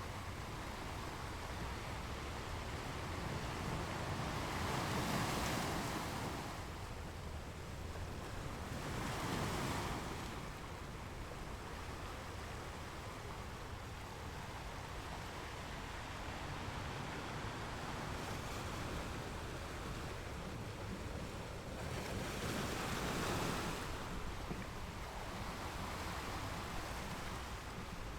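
Ocean waves breaking on a beach: a steady hiss of surf, with waves swelling and washing in about three times, around 5, 9 and 23 seconds in, over a low rumble.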